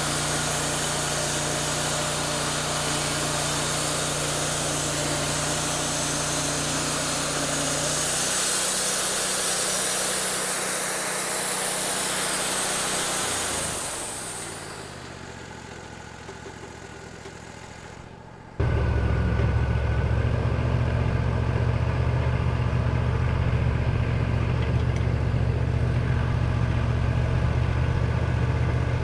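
Wood-Mizer LT40 band sawmill running, its engine steady and the band blade cutting through a pecan log with a hiss. After about 13 seconds the sound winds down, the pitch sliding downward as it slows. About two-thirds in it jumps abruptly to a louder, steady, deep engine running note.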